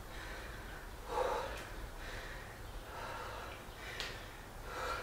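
A man breathing in and out with effort while doing single-leg calf raises, several breaths, the loudest about a second in. A brief click near the end.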